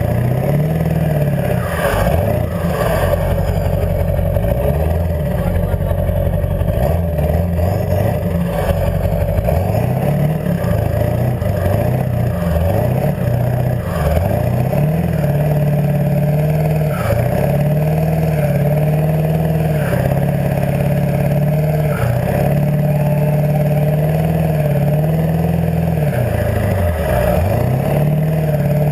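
Ford 7.3-litre diesel V8 running through straight exhaust stacks, its note climbing as it revs and dropping back, over and over, with a deep dip near the end.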